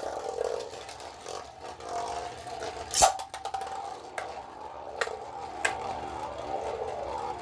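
Two 3D-printed Beyblade tops spinning with a steady whir, clacking sharply as they collide. The loudest hit is about three seconds in, with two lighter ones around five seconds in.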